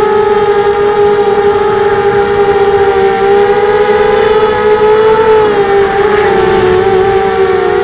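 FPV quadcopter's electric motors and propellers, heard from the drone's onboard camera, whining steadily in flight, the pitch rising and dipping a little with the throttle.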